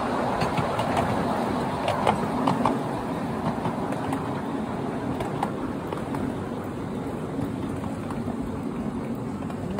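Miniature ride-on railway train running on its track, heard from one of the passenger cars: a steady rumble of small wheels on rail with sharp clicks from the rail joints, more of them in the first few seconds.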